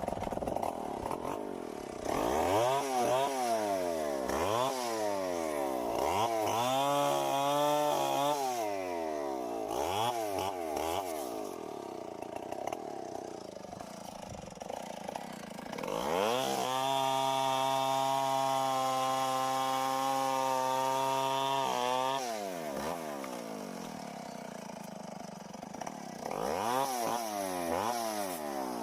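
Tecomec two-stroke chainsaw revving up and dropping back to idle again and again. Past the middle it is held at a steady high speed for about five seconds before falling back, and it revs again near the end.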